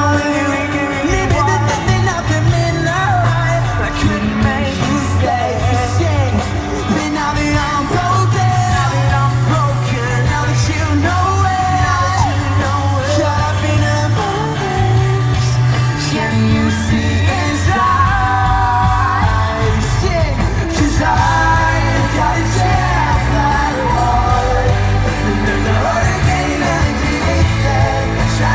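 Live pop-rock band playing through an arena PA: sung vocals over bass, drums and guitars, with audience members yelling along close by.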